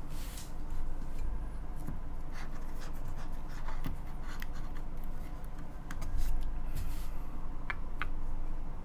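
Scattered, irregular keystrokes and light rubbing on a Forever65 mechanical keyboard with lubed linear MX Black Hyperglide switches on a carbon fiber plate, with a steady low rumble underneath.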